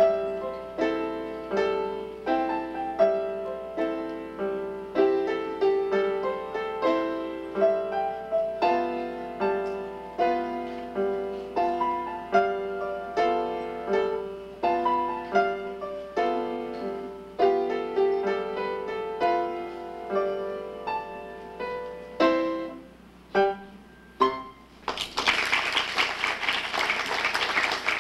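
Grand piano played solo, a steady run of struck notes, closing with a few separate final chords. Applause breaks out near the end.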